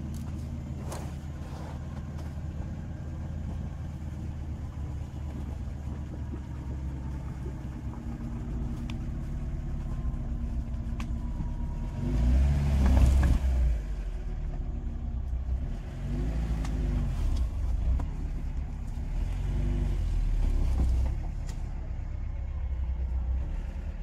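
Lada Niva engine running under load, revving up and down as the car crawls out of a creek and up a snowy bank. The loudest rev comes about twelve seconds in, and shorter rises and falls in pitch follow.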